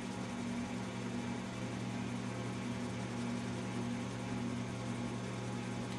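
Steady low hum with an even hiss underneath, a constant machine-like background drone.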